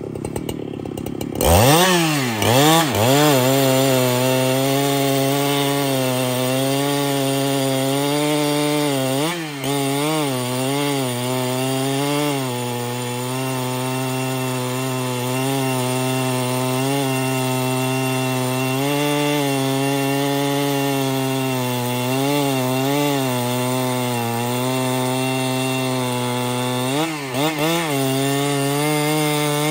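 Husqvarna 395XP two-stroke chainsaw cutting through a large hardwood log: the throttle opens about a second and a half in, the engine note wavers as the chain bites, then it runs at a steady full-throttle pitch, dipping briefly several times as the bar loads up in the cut.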